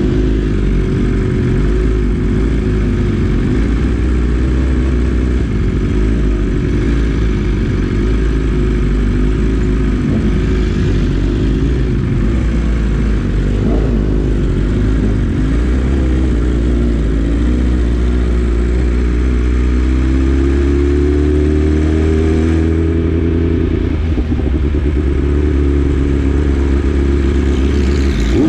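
BMW S1000RR inline-four sport-bike engine running steadily while riding. Its pitch rises gently for several seconds in the second half, over a deep continuous rumble.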